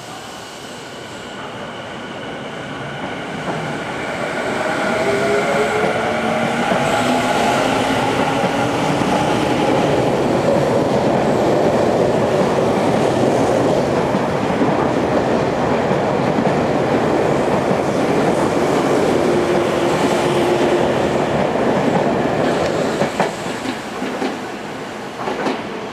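A Tokyu 5050 series 4000 electric train pulling away from a platform. The whine of its inverter-driven traction motors climbs in pitch as it accelerates, then gives way to the steady rumble and wheel noise of the cars passing close by. A few sharp clacks come near the end.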